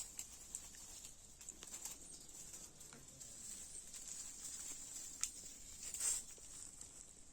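Faint outdoor ambience: a steady high-pitched hiss with scattered small crackles and rustles, the loudest about five and six seconds in.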